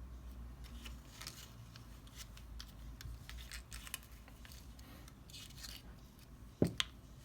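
Light handling noises of small soldering-iron parts being worked by hand: scattered soft clicks, scrapes and rustles, with one sharper knock near the end.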